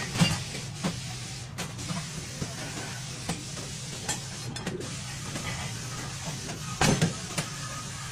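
Scattered mechanical clicks and knocks over a steady low hum, with a louder knock about seven seconds in.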